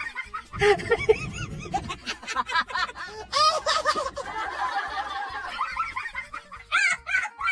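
Laughing and snickering, quick repeated ha-ha sounds, with music underneath.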